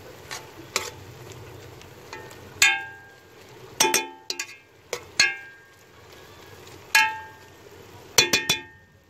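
A metal spoon stirs beef and masala in a metal cooking pot, knocking against the pot's side. There are several sharp clinks that ring briefly, about one every second or so from about two and a half seconds in, with a quick run of clinks near the end.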